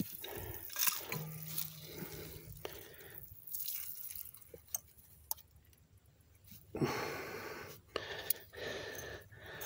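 Water hissing and spraying from the loosened threaded joint of a brass water pressure regulator as it is unscrewed, with dripping and light clicks from the fitting being handled. The spray comes in spells: it fades after a few seconds and starts again near the end.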